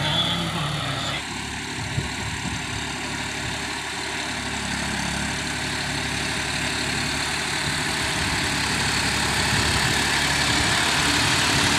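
John Deere 5050D tractor's three-cylinder diesel engine running steadily as it pulls a rotavator puddling a flooded paddy field, growing gradually louder as it comes closer.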